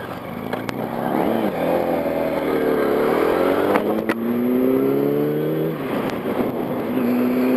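Yamaha R1's inline-four engine accelerating, its pitch climbing steadily, with wind rushing over the microphone. Near the end the pitch drops, as at a gear change, then climbs again.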